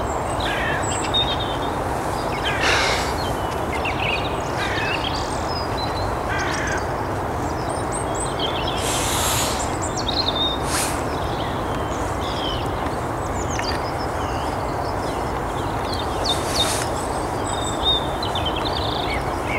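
Early-morning birdsong: many small birds chirping and whistling, with a few harsh crow caws, over a steady low background rumble.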